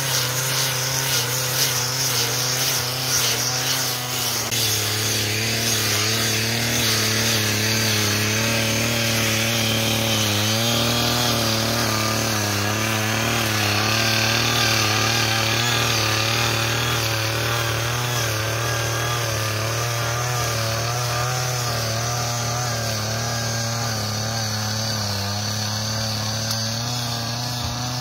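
Backpack brush cutter's small petrol engine running steadily at high speed while its spinning head cuts weeds and grass, the engine note wavering slightly as it takes the load.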